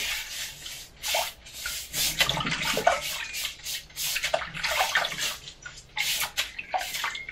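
A small brush scrubbing a refractory brick in a basin of water, with quick, irregular wet strokes and water splashing. The brick is being washed clean of dust left by cutting it with an angle grinder.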